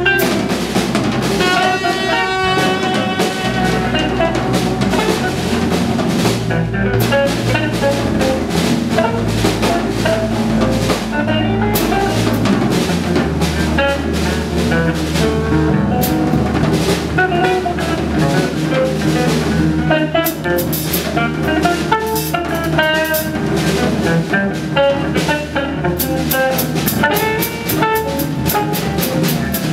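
Live free jazz: drum kit, electric bass and electric guitar playing loudly together, with a saxophone line at the start that drops out after a few seconds. The drums grow into a fast run of evenly spaced strokes near the end.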